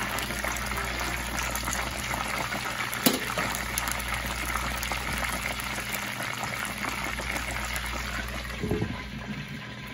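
Whole Cornish hen deep-frying in vegetable oil heated to 350 °F: a steady, dense sizzle and crackle of bubbling oil. One sharper pop comes about three seconds in, and a brief low bump near the end.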